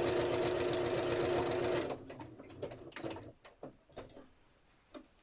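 Sewing machine with a walking foot stitching a straight line at a steady, rapid stitch rhythm, stopping abruptly about two seconds in. A few light clicks and taps follow.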